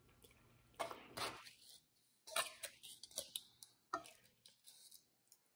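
Quiet eating sounds: scattered soft mouth clicks while chewing, and light clicks and crinkles of a metal fork picking food out of an aluminium-foil packet, most of them between about two and four seconds in.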